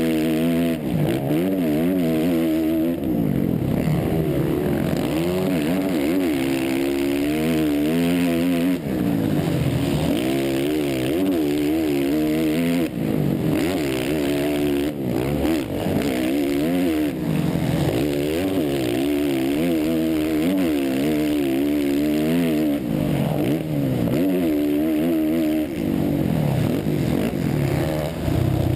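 Motocross bike engine heard from on board at racing speed, its revs rising and falling continually as the rider works the throttle and shifts through the gears, with a few brief dips where the throttle shuts off.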